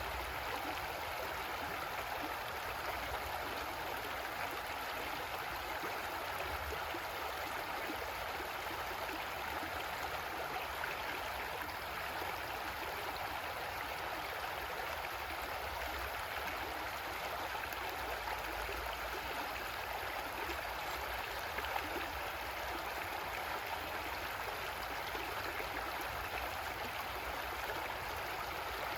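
Creek water flowing and gurgling over rocks, a steady rushing babble with no pauses.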